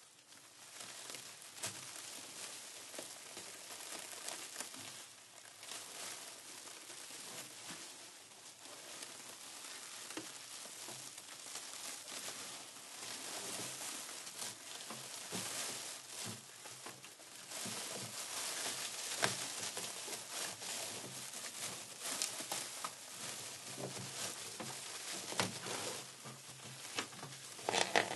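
Plastic sheeting crinkling and crackling without a break, a dense stream of small sharp crackles with a few louder cracks, growing a little louder over the course of it.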